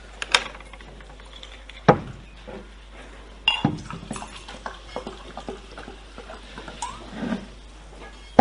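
Scattered small clicks and knocks of objects being handled, with a sharp knock about two seconds in standing out above faint room noise.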